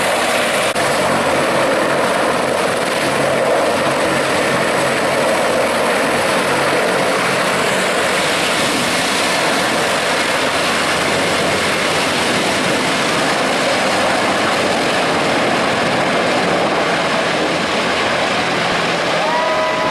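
Sikorsky CH-53E Super Stallion heavy-lift helicopter running, a loud, steady rush of turbine and rotor noise with a low hum underneath.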